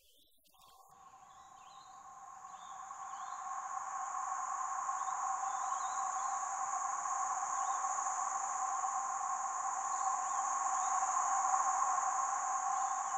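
Steady droning insect chorus that fades in over the first few seconds and then holds, with faint bird chirps over it.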